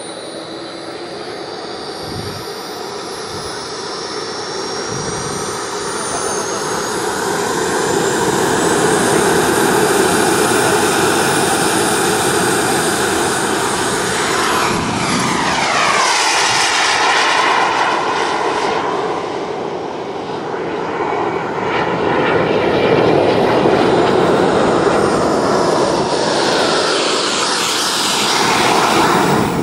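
Model turbine jet engine running at flight power with a high whine and rushing air, heard from the camera on board the model. The whine climbs in pitch over the first several seconds, and a sweeping whoosh comes through about halfway.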